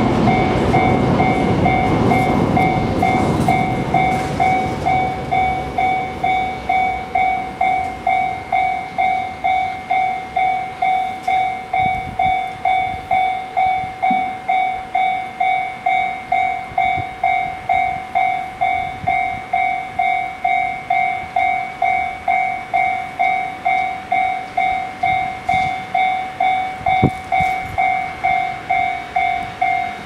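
Japanese level-crossing warning bell ringing its electronic "kan-kan" tone in a steady, even rhythm. A train's low rumble fades away over the first few seconds.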